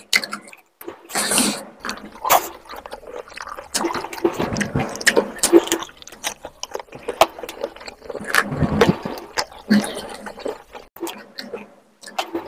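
Wet chewing and lip smacking of someone eating rice and spicy chicken curry by hand, with irregular sticky clicks and squelches of the saucy food in mouth and fingers.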